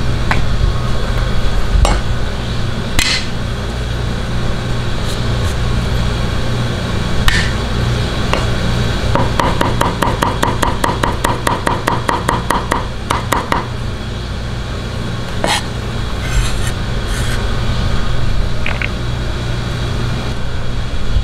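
Cleaver mincing garlic on a thick wooden chopping block: a rapid, even run of chopping strokes lasting about four seconds around the middle, with a few single knocks of the blade before and after, over a steady low hum.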